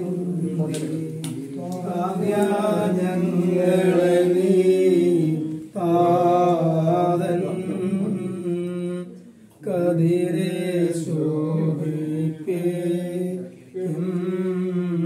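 Singing of a Malayalam Christian devotional song, in long held phrases broken by short pauses.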